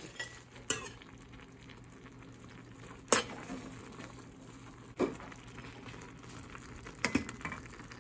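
Metal utensil stirring and lifting instant noodles in a stainless steel pot, knocking sharply against the pot about five times, a second or two apart, with wet shuffling of noodles in between.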